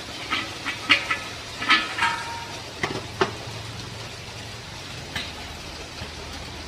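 Metal clinks and knocks as a metal pressure-tank shell is handled and set down on a bamboo-slat table, with one clink ringing briefly about two seconds in.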